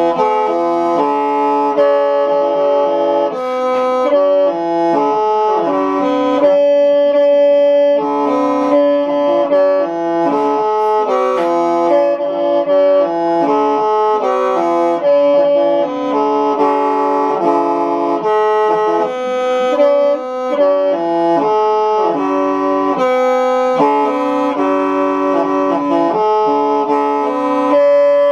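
Hmong qeej, a bamboo free-reed mouth organ, being played: several reeds sound together in held chords that shift every half second or so, over a recurring low held note.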